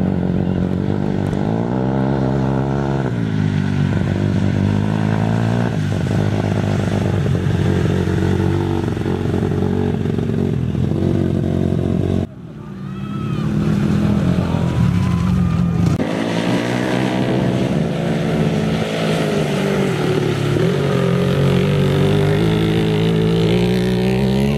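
Dirt bike engines revving up and easing off, the pitch rising and falling with the throttle. The sound drops out abruptly about halfway through and builds back up over a couple of seconds.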